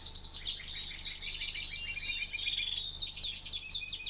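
Canary singing: rapid trills of quick, falling, high notes, broken by a few short held whistles.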